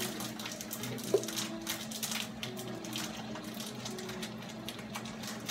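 A pot of water boiling on the stove over a steady low hum, with one small knock about a second in.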